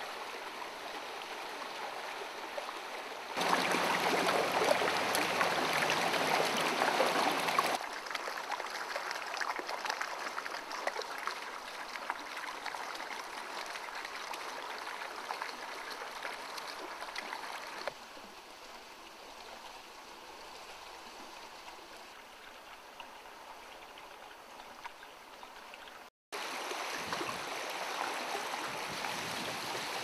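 Shallow river water running over stones: a steady flowing noise that jumps louder and softer a few times, with a brief drop-out about 26 seconds in.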